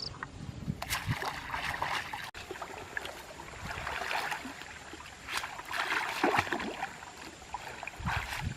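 Water splashing and sloshing in several irregular bursts, about a second in, around the middle and again near the end.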